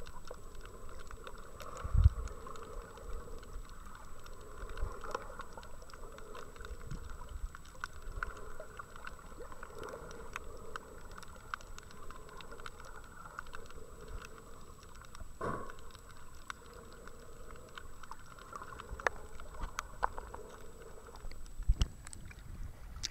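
Underwater sound picked up by a waterproof camera's microphone: a muffled steady hiss scattered with many small clicks and crackles, and a thin steady high whine. There is a low thump about two seconds in, and more knocks near the end as the camera comes up at the surface.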